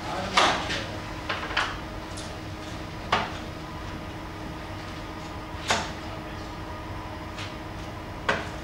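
Darts striking a dartboard mounted on a wooden panel: three sharp knocks spaced about two and a half seconds apart. In the first two seconds, two closer knocks come as darts are pulled from the board.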